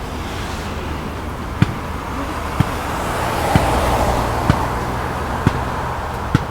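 Road traffic noise that swells and fades as a car passes about midway. Over it are sharp footsteps on pavement, about one a second, beginning shortly after the start.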